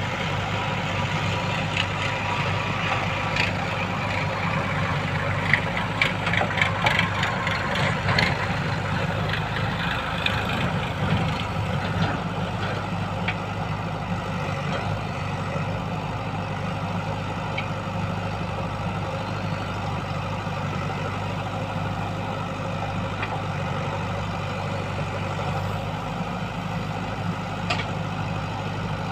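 JCB 3DX backhoe loader's diesel engine running steadily, with a cluster of knocks and scrapes about a third of the way in as the backhoe bucket digs into soil and stones.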